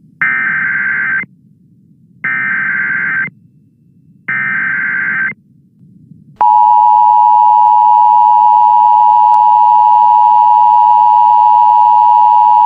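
Emergency Alert System tornado warning: three one-second screeches of SAME header data tones, about two seconds apart. About six seconds in, the steady two-tone EAS attention signal (853 and 960 Hz together) starts and holds.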